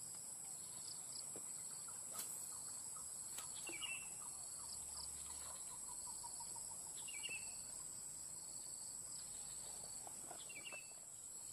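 Steady high-pitched chorus of insects, with a short chirping call, likely a bird, repeated three times about every three and a half seconds.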